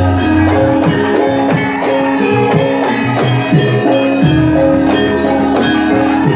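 Band music playing an instrumental passage, with a regular beat of drum strokes under sustained pitched notes.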